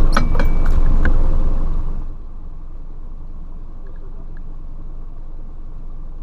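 A music track with a beat ends about two seconds in. It leaves the steady low rumble of a motorboat under way.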